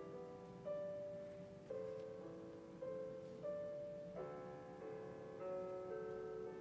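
Background music: a slow, gentle piano melody, one held note after another, with a fuller chord a little over four seconds in.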